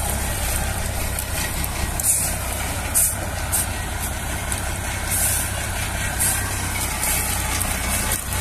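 Diesel engine of a well-drilling rig truck running steadily, with short bursts of high hiss every second or so.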